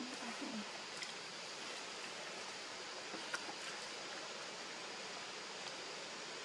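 Steady outdoor background hiss, with a few faint clicks about a second in and again past the three-second mark.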